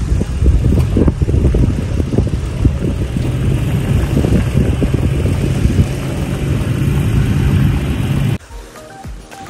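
An engine running steadily, with wind buffeting the microphone. It cuts off abruptly about eight seconds in, and quiet music starts.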